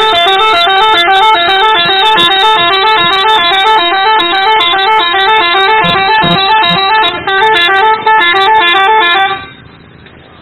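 Bus 'telolet' musical horn playing a fast, jaunty melody of several alternating tones over and over, loud, then cutting off near the end.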